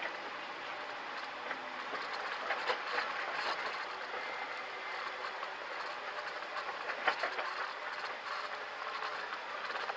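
Jeep driving slowly over a rocky dirt trail: a steady rattling, crunching noise from the vehicle and its tyres on rock and gravel, with sharper knocks a few seconds in and again about seven seconds in.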